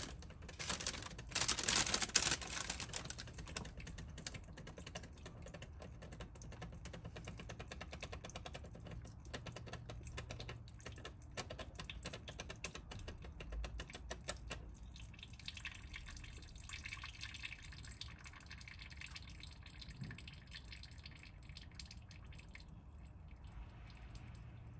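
Engine oil dripping and trickling from around the oil filter of a Subaru EJ20 turbo engine during an oil change: a patter of many small drips, with a few louder noisy bursts in the first few seconds.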